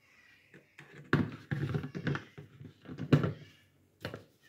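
A few irregular knocks and clunks as the electric food chopper's motor unit and lid are handled on its glass bowl, with no motor running.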